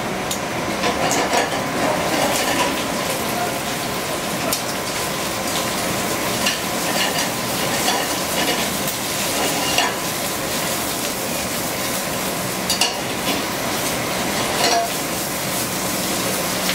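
Spinach sizzling as it sautés in a hot skillet over a gas burner, with a steady frying hiss and scattered clicks and scrapes of metal tongs against the pan as the leaves are tossed.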